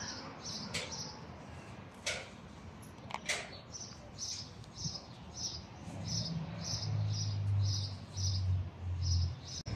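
High, even chirping, about three chirps a second, with a few sharp clicks in the first half. From about six seconds in, a low steady cat growl, broken twice, is the loudest sound.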